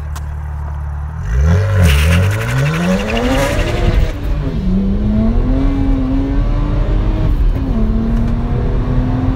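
BMW 1M Coupe's N54 twin-turbo straight-six, running through catless downpipes and an Akrapovic exhaust, idles and then about a second in accelerates hard, the revs climbing steeply. About four seconds in the pitch drops sharply at a gear change, then rises again and holds a fairly steady note.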